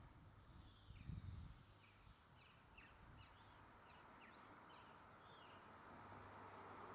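Faint outdoor ambience with small birds chirping: a run of short, quick, falling calls about a second in, lasting a few seconds. A low thump comes near the start of the chirping, over a steady low hum and hiss.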